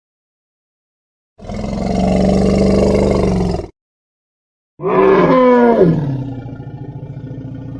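Sauropod dinosaur sound effects: a deep roar lasting about two seconds, then after a short pause a call that falls in pitch and trails off into a low, steady rumble.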